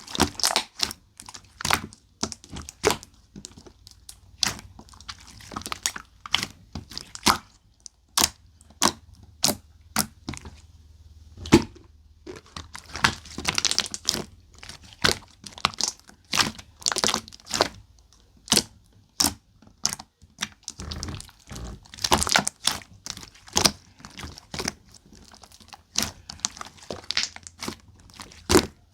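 Pearl slime being squeezed and pressed by hand, giving an irregular run of sharp clicks and pops as trapped air bursts out, with a few denser crackly stretches.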